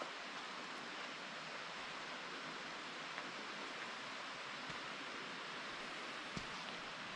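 Steady rushing hiss of distant falling water, even and unbroken, with a faint thump about six and a half seconds in.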